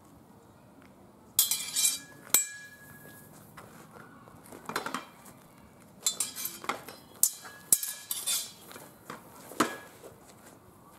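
Sword and buckler sparring: metal blades clash against each other and against the bucklers in a series of sharp clanks, some of which ring briefly. There are single hits about 1.5 and 2.3 seconds in, a cluster near the middle, a rapid flurry a little after that, and a last clash near the end.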